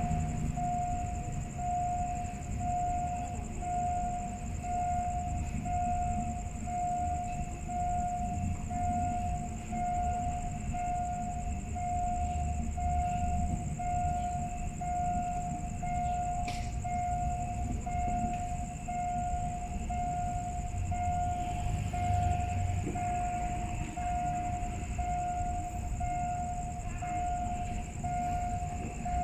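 Railway level-crossing warning bell ringing repeatedly at about one ding a second, signalling an approaching train, over a steady low rumble and a constant high-pitched whine.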